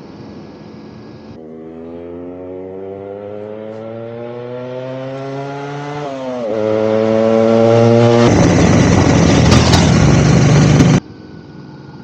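Royal Enfield Himalayan 452's single-cylinder engine pulling under acceleration: the revs climb steadily, drop quickly at a gear change about six seconds in, and climb again. For the last few seconds a loud, even rushing noise drowns it out, then it cuts off suddenly.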